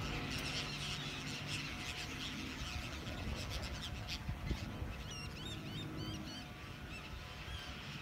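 A large flock of gulls calling over the water: many short, overlapping cries, busiest about five to six seconds in, over a steady low rumble.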